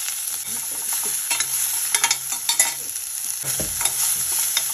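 Chopped onion and green chillies sizzling in hot oil in a kadai while being stirred, with short scraping clicks against the pan. A dull knock about three and a half seconds in.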